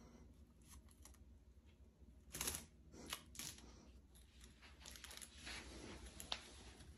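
Adhesive tape stuck to a cat's paws pulling off a woven rug as it steps, giving a few faint, short sticky crackles, the loudest about two and a half seconds in.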